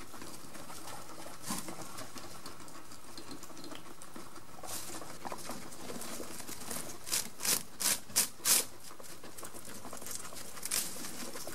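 Guinea pig rustling in dry hay: a run of short, crackly rustles about halfway through and one more near the end, over a steady faint hiss.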